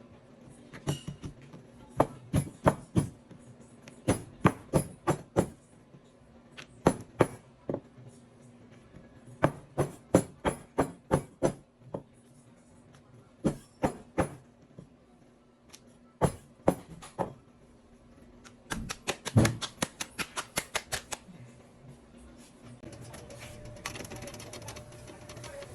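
Hands patting and shaping pieces of dough, heard as sharp taps in quick bursts of several a second, with a faster run of taps a little past the middle.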